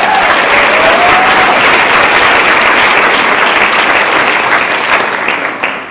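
Audience applauding in a large hall: dense clapping that starts at once and thins out near the end, with one voice calling out briefly near the start.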